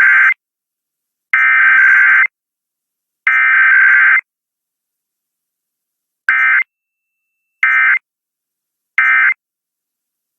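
Emergency Alert System SAME digital data bursts, harsh warbling tones: the end of one header burst and two more full header bursts about a second long each, then three short end-of-message bursts, each separated by a second of silence. They mark the start and end of a required weekly EAS test.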